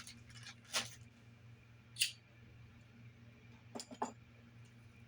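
A few light, sharp clicks and taps from small hard objects being handled: one about two seconds in and a quick pair near four seconds. A steady low hum sits underneath.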